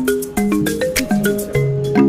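Background music: a melody of short struck notes stepping up and down over a light clicking beat.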